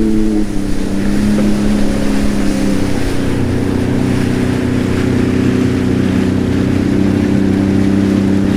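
Sea-Doo personal watercraft engine running, its pitch dropping in two steps in the first three seconds as the craft slows, then holding steady. Water rushes and sprays from the wake behind it.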